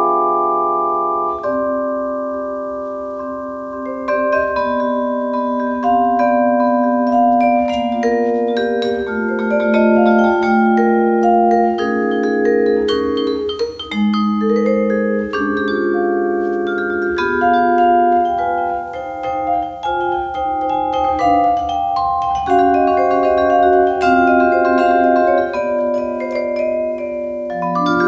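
Yamaha vibraphone played solo with mallets: a blues of struck chords and melody notes that ring long and overlap one another.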